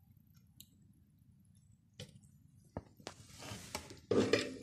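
Wires being unsoldered from a camera circuit board with a soldering iron and pulled free by gloved fingers: a couple of small sharp clicks about two seconds in, a soft hiss, then louder rustling handling noise near the end.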